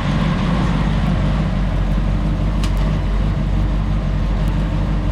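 Ford 390 FE V8 engine of a 1967 Thunderbird idling steadily.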